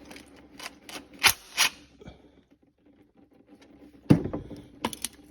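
Scattered clicks and knocks of hand tools on metal as the last bolt on a 4T65E transmission is worked loose, with two sharper clicks early on, a quiet pause, and a louder knock about four seconds in.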